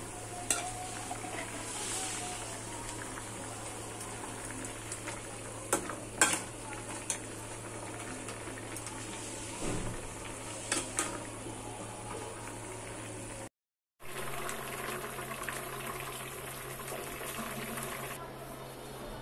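Curry bubbling as it simmers in an aluminium pan, with a spatula and spoon stirring it and clicking against the pan several times. The sound drops out for half a second at a cut, then the simmering goes on.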